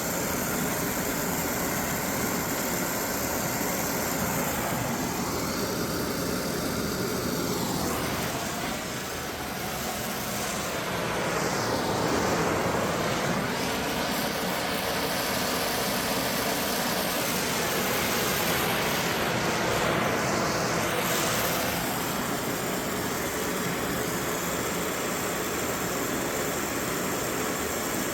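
Brazing torch flame burning with a steady hiss, its tone sweeping slowly as the flame moves.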